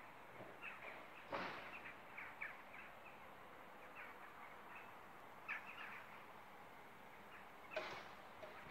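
Small birds chirping: scattered short, high calls over a faint steady background hiss, with two louder bursts, about a second and a half in and near the end.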